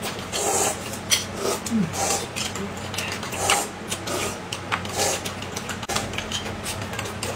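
Eating sounds at a table: spoons clinking against glass bowls, short slurps and sips of a thick black sesame drink, and puffs of blowing on hot dumplings. A steady low hum runs underneath.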